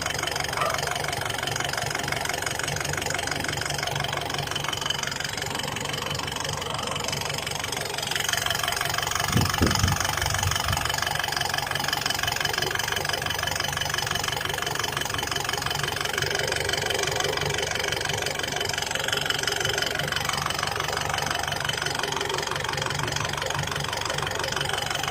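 Isuzu D-Max 3.0 four-cylinder diesel engine idling with a steady clatter. It gets somewhat louder about eight seconds in, with a brief low thump shortly after.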